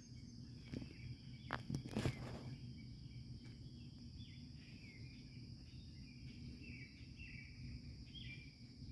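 Outdoor ambience of a steady, high-pitched insect drone, with a few handling knocks and rustles about one to two seconds in. From about three seconds on, short bird chirps repeat every second or so.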